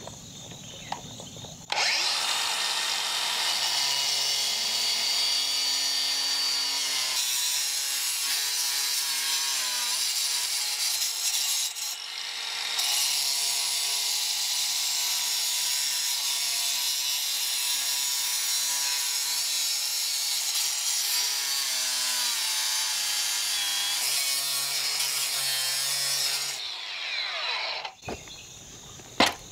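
Handheld power tool running under load as it cuts into hard, dusty ground, its motor pitch wavering as the load changes. It starts about two seconds in, dips briefly near the middle, and stops near the end.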